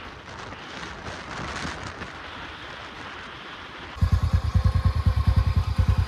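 Wind rushing over the microphone, then from about four seconds in a motorcycle engine idling close by with a loud, even thump of about ten beats a second.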